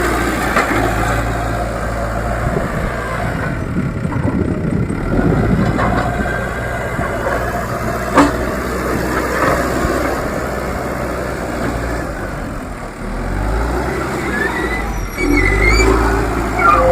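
Diesel engine of a backhoe loader running steadily while it works the soil, with a single sharp knock about eight seconds in. Near the end it gets louder and some high squeaks come in.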